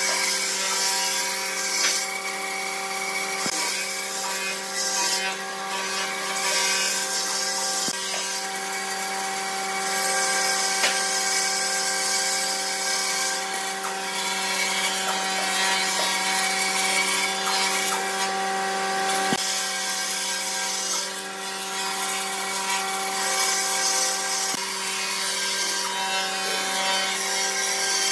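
Band saw running, its blade cutting a curve through a thick wooden board: a steady motor hum under a cutting hiss that swells and fades several times as the board is fed and turned.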